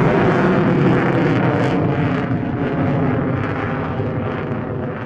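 Four Allison T56 turboprop engines of an AP-3C Orion flying low, a loud steady drone of engines and propellers that slowly grows quieter, trailing away near the end.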